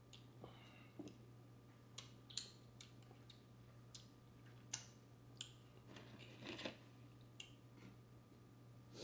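Faint eating sounds: scattered wet smacks and clicks of a mouth chewing chicken wings and licking fingers, over a low steady hum.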